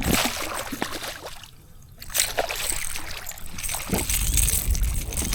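Water splashing and sloshing around a kayak, with uneven knocks and gusts of wind buffeting the microphone; it drops quieter briefly about a second and a half in before picking up again.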